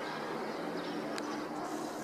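Distant town ambience: a steady wash of street and traffic noise, with one short click about a second in.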